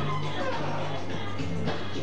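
Music with a repeating bass line.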